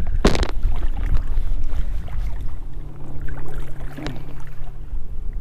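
A hooked bass splashing hard at the surface beside the kayak, one sharp splash about a third of a second in, over a steady low wind rumble on the microphone. A smaller knock or splash comes near four seconds, as the fish is brought to the side.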